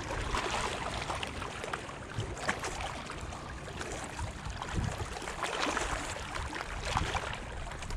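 Small wind-driven waves lapping and splashing against a rocky shoreline in irregular small splashes, with wind rumbling on the microphone.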